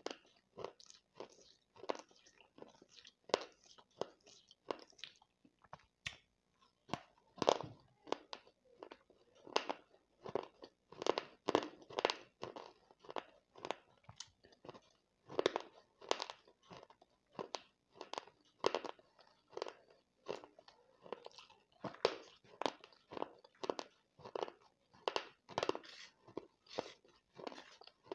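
A person chewing baked clay crumbles and clay powder: a steady run of dry crunches, about one to two a second.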